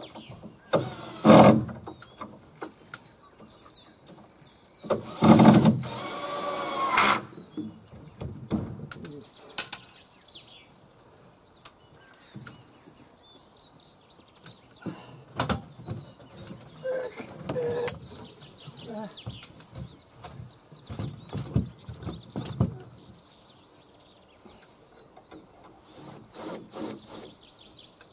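A cordless drill runs into timber framing in two loud bursts, a short one about a second in and a longer one of about two seconds around five seconds in, ending in a steady motor whine; the builder blames poor drill bits for slow work. Softer knocks and handling on the wood follow, and small birds chirp throughout.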